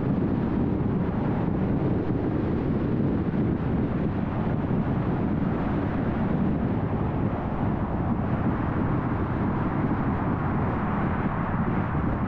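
Steady road noise of a car driving at freeway speed: a continuous low rumble of tyres on the road with wind noise. The hiss grows a little brighter for a few seconds near the end.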